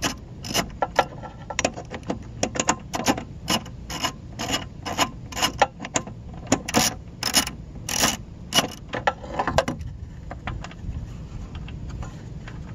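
Ratchet wrench clicking in short back-and-forth strokes, about two a second, as a bolt is turned out. The clicking stops about ten seconds in.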